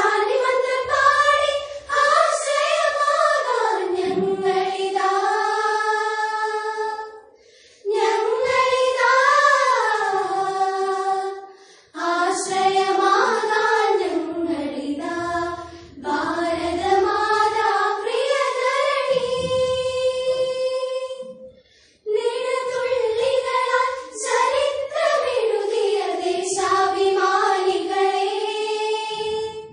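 A group of teenage schoolgirls singing a patriotic song together in unison, in long sung phrases broken three times by short pauses for breath.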